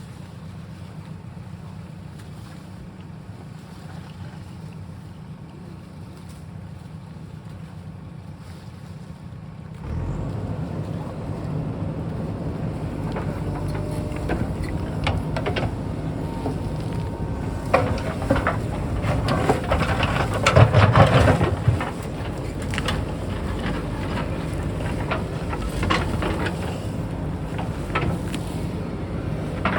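JCB backhoe loader's diesel engine running, getting louder about ten seconds in as it works. Scattered knocks and clatter follow, heaviest a little past the middle.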